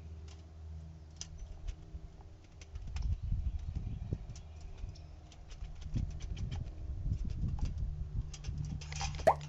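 Many short clicks, scratches and low knocks of an animal moving on a bird feeder right against the microphone, busiest from about three seconds in, with one short sharp squeak near the end.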